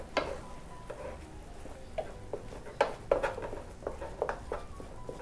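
Wooden spoon stirring and pressing thick choux pastry dough in a stainless steel saucepan, with irregular knocks and scrapes of the spoon against the pot. The dough is being cooked and dried over the heat until it leaves a film on the bottom of the pot.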